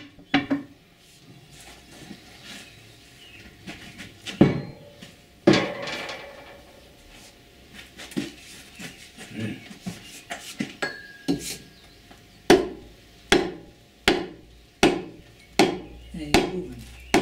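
Wooden-handled hammer striking the metal parts of a 1917 Farquhar stationary steam engine to knock them free during dismantling: a few scattered clanks, then a steady run of about seven blows, a little under a second apart, near the end.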